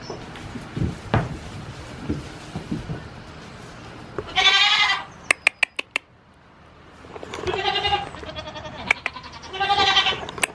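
Goats bleating: three loud, quavering bleats of about a second each, the first about four seconds in and the others near seven and a half and nine and a half seconds. Soft knocks and rustling come before them, and a quick run of sharp clicks follows the first bleat.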